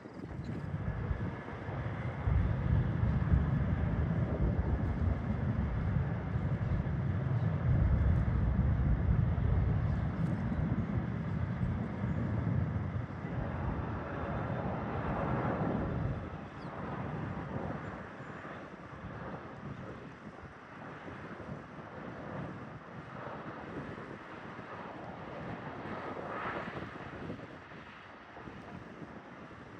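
Jet airliner passing with a deep engine rumble that builds about a second in, peaks for several seconds, then fades away after about sixteen seconds.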